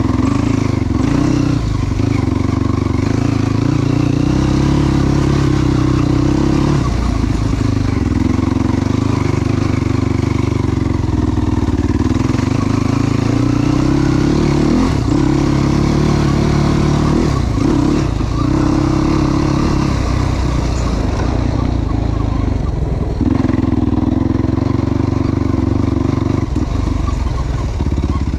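Yamaha YFZ450 sport ATV's single-cylinder four-stroke engine running hard while riding, its pitch climbing and falling off several times as the throttle is opened and closed.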